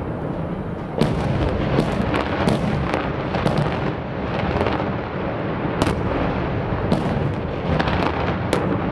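A rapid series of dynamite blasts, about eight sharp bangs in nine seconds, over a continuous rumble.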